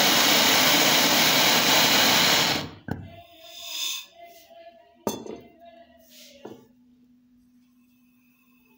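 Clix gas torch flame burning with a loud steady hiss, cut off suddenly a little under three seconds in, followed by a few sharp clicks and knocks of the torch being handled.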